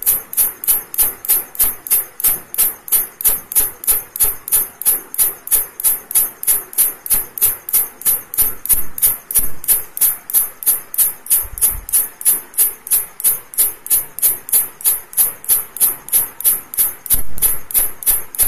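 Green grasshopper chirping: a steady, evenly spaced run of very high-pitched chirps, about three to four a second.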